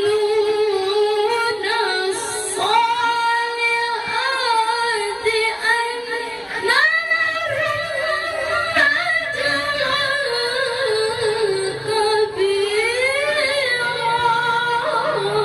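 A woman reciting the Qur'an in the melodic tilawah style: one voice holding long notes with ornamented runs that rise and fall in pitch.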